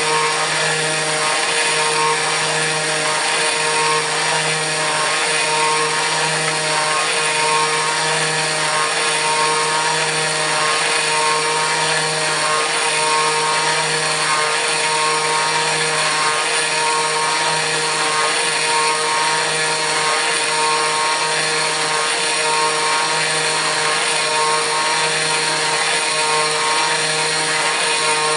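Kress FME-1050 router spindle on a CNC mill running at speed while milling aluminium: a steady whine over a hiss, with a low hum that swells and dips about once a second.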